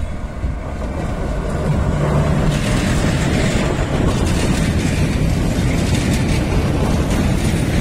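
Indian Railways electric locomotives hauling a container freight train passing close by: a steady heavy rumble of wheels on rail and the locomotives' running gear, growing louder over the first two seconds as the locomotives draw level.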